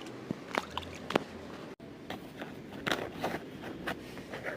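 Toys on a fidget board being handled: irregular sharp clicks and taps, with a brief break in the sound a little under two seconds in.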